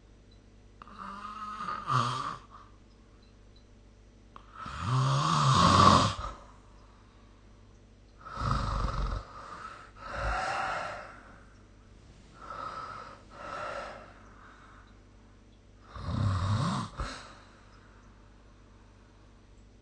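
A sleeping person snoring: a series of snoring breaths a few seconds apart, uneven in length and loudness, the loudest about five seconds in.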